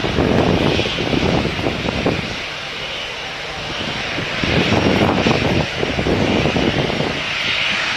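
Embraer 175 jet airliner's twin GE CF34-8E5A1 turbofans at takeoff thrust during the takeoff roll: a continuous jet rush that dips slightly midway and swells again after about four and a half seconds.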